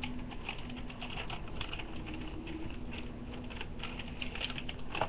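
Light, irregular crackling and ticking of MRE plastic packaging and the heater sleeve being handled, with a faint steady low hum underneath.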